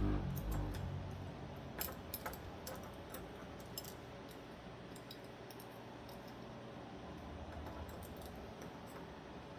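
Scattered light clicks and taps of small metal folding-knife parts being handled during a teardown, a cluster of them about two to four seconds in and fainter ones after.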